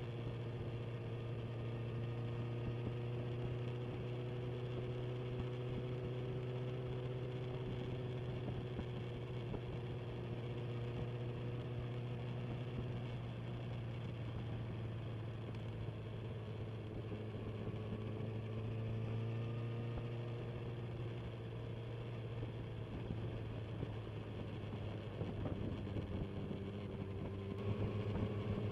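Inline-four sport motorcycle engine running at low, fairly steady revs, its pitch drifting slightly up and down, a little louder near the end.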